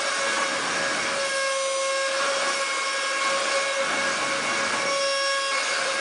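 Suction fan of a miniature anti-gravity wall-climbing RC car running, a steady whine over a rushing hiss, holding the car to the ceiling as it drives upside down.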